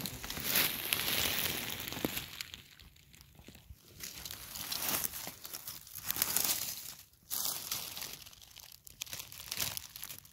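Dry leaf litter, pine needles and grass rustling and crunching in irregular bursts, first underfoot and then as a hand parts the grass around a cluster of porcini mushrooms.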